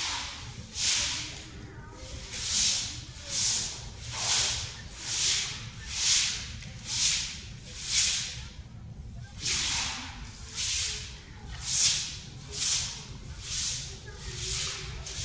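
A stiff stick broom swishing over a wet stone floor in quick, regular strokes, about one a second, with a short pause near the middle.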